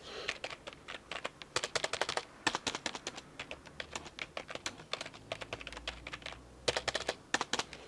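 Typing on a traditional standard office keyboard: a fast, uneven run of key clicks and clacks, pausing briefly past the middle before a last quick flurry.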